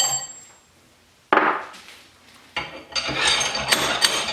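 Metal clanks and clinks from a lathe's tailstock being worked by hand: a sharp knock about a second in, then a run of ringing metal clinks near the end.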